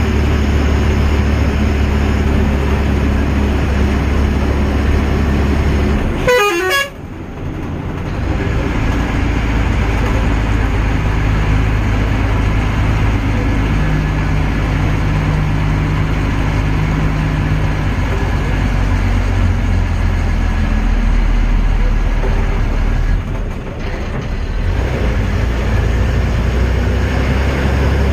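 A road vehicle driving, with a steady engine note and road and wind noise. About six seconds in, a brief sound falls in pitch, and after it the engine's low tones drop and change.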